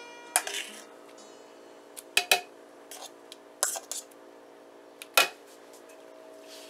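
Metal utensil scraping and knocking against a stainless steel pot while tomato sauce is scooped out, with about five sharp clinks spread across a few seconds, two of them close together.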